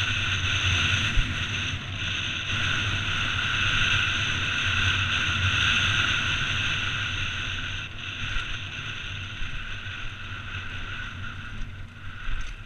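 Wind rushing over a helmet-mounted camera's microphone, mixed with tyres rolling and rattling on loose gravel as a downhill mountain bike descends at speed. The noise drops somewhat and gets more uneven about eight seconds in.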